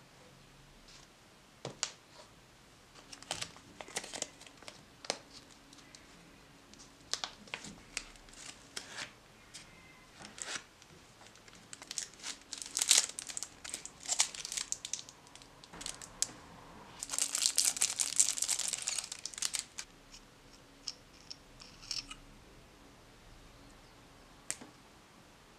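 Close-miked handling sounds of a paintbrush set being unboxed: a cardboard gift box, a leather brush pouch and the brushes are handled, giving scattered taps, clicks and rustles, with a longer rustle for a couple of seconds about two-thirds of the way through.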